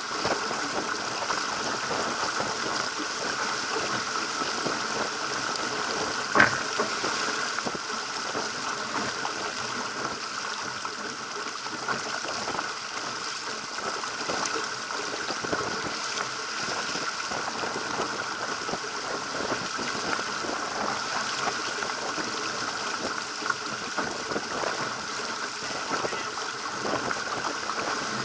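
Water rushing and splashing along the hull of a Pacer sailing dinghy as it beats through choppy waves, a steady hiss, with one sharp knock about six seconds in.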